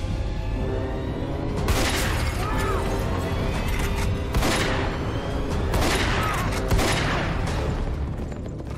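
Dramatic trailer score with held tones, cut through by four loud noisy hits with echoing tails: the first about two seconds in, the others over the next five seconds. It thins out near the end.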